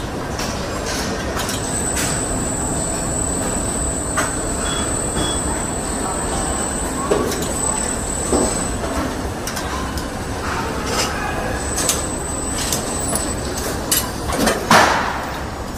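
Car assembly-line machinery running: a steady mechanical din with a thin high whine that comes and goes, and a few metallic knocks, the loudest near the end.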